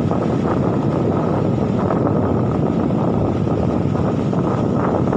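Steady rushing noise of wind buffeting the microphone over breaking surf.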